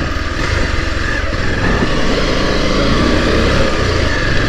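Motorcycle engine running steadily at low speed while the bike is ridden over a rough, stony dirt track.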